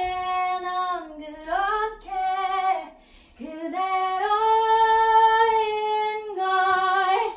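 A woman singing alone, unaccompanied: a few short phrases, a brief break, then a long held note, with a last note rising at the end.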